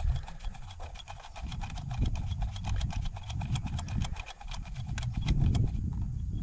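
A fast, even run of light clicks, several a second, over a low rumble; the clicking stops near the end.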